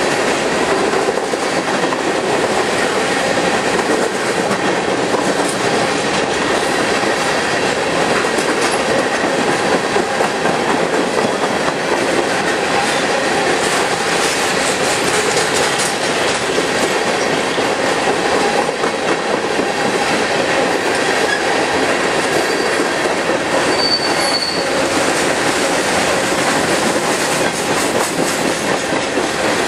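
Empty coal hopper cars of a Union Pacific freight train rolling past, a steady rumble of steel wheels on rail with clatter over the rail joints. A brief high wheel squeal sounds once near the end.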